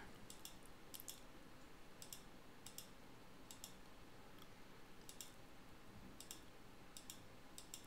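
Faint computer mouse clicks over quiet room tone, about one every second, often in close pairs.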